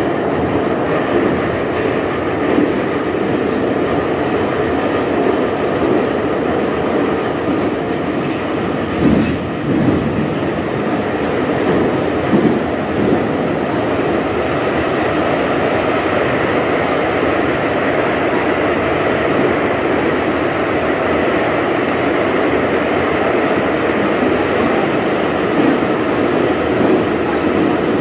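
Interior noise of an Ezh3RU1 metro car on the move: a steady rumble and clatter of wheels on the rails, with a few louder knocks about nine and twelve seconds in.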